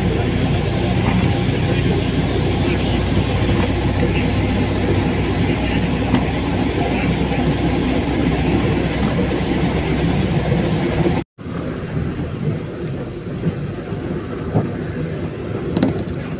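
Town bus running along the road, heard from inside: steady engine and road noise. About eleven seconds in the sound cuts out for a moment and comes back lighter, with less low engine sound.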